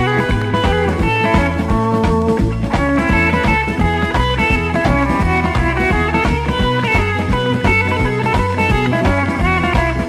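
Background music: guitar-led rock with a steady beat.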